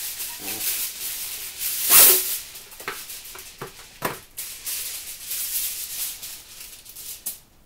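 Sheet of aluminium kitchen foil being pulled from its roll and crinkled by hand: a dry rustling that is loudest about two seconds in, with a few sharper crackles a little later.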